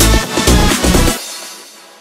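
Electronic dance music with a heavy kick-drum beat about twice a second; a little over a second in, the bass and drums drop out and the rest of the music fades away.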